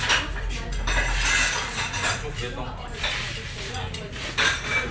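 Restaurant dining-room clatter: dishes and cutlery clinking as diners eat at their tables, a steady wash with frequent short clinks, a little louder near the end.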